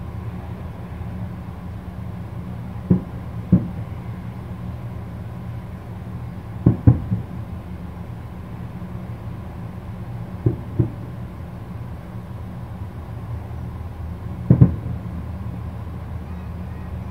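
Distant aerial firework shells bursting: short booms in quick pairs or threes, about four seconds apart, over a steady low rumble of background noise.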